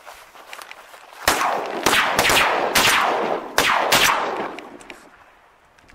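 Shotgun blasts, about six in quick succession over roughly three seconds, each ringing out and fading away, as a pond is jump-shot.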